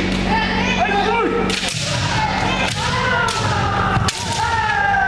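Kendo sparring: sharp cracks of bamboo shinai striking armour, about one a second, overlapping long shouted kiai from several practitioners and thuds of stamping feet on a wooden floor.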